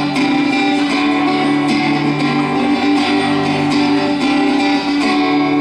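Acoustic guitar strummed, chords ringing on without any singing.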